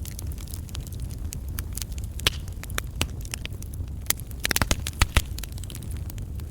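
Burning logs of a wood campfire crackling and popping over a low steady rumble, with a quick run of louder sharp pops about four and a half to five seconds in.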